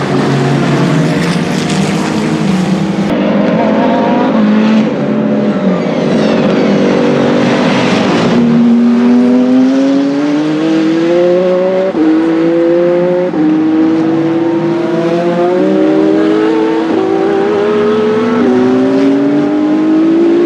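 Hypercar endurance prototype race car engine at full throttle: a car accelerating through the gears, its note climbing steadily and dropping at each upshift, three upshifts in the second half. Before that, a stretch of mixed engine notes with a brief rush of higher noise.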